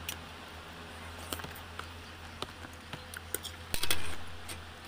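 Close-up mouth sounds of chewing sea grapes: scattered small wet clicks and pops, with one louder crackle near the end.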